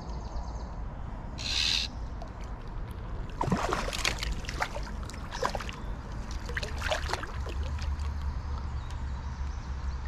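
Hooked rainbow trout splashing and thrashing at the water's surface as it is played on a fly rod toward the net, in a run of splashes from about three seconds in. A brief hiss about a second and a half in.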